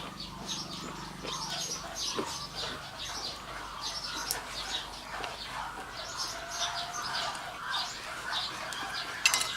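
Birds chirping over and over in short high notes. Near the end a utensil starts clinking against a pan.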